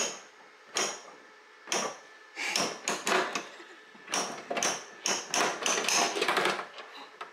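Hand crank of a capsule-toy (gashapon) vending machine being turned, its mechanism giving sharp ringing clicks: three single clicks about a second apart, then a fast run of clicks for about four seconds.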